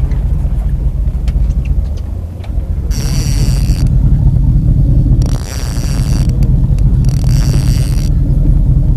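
Steady low rumble of the boat's engine, broken by four bursts of high whirring from a fishing reel, each about a second long, as an angler works a fish on a bent trolling rod.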